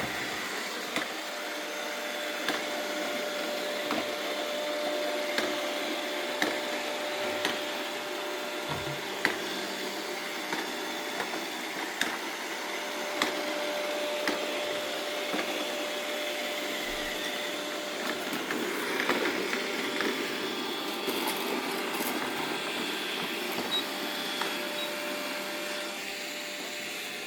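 Robot vacuum cleaner running, with a steady whine that fades about two-thirds of the way through and scattered sharp clicks.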